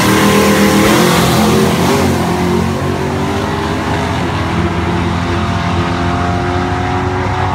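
Chevrolet S-10 pickup and the car racing it launching hard off a drag strip start line, engines at full throttle and climbing in pitch. The engines are loudest in the first couple of seconds, then get a little fainter as the vehicles pull away down the track.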